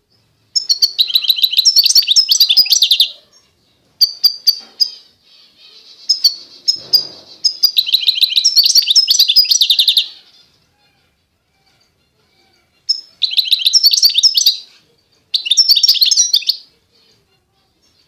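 A finch singing: fast twittering and trilling phrases, each a second or a few seconds long, broken by short pauses.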